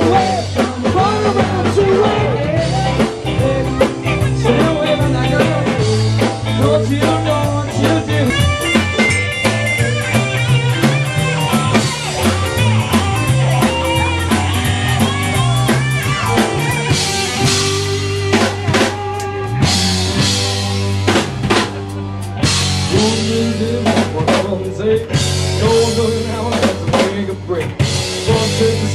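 Live band playing rock music, with the drum kit strong in the mix and a steady beat.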